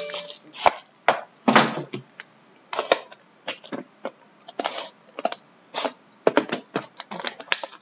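Shrink-wrap plastic being pulled off a trading-card box while cardboard boxes are handled: a run of short, irregular crackles and clicks, the longest about a second and a half in.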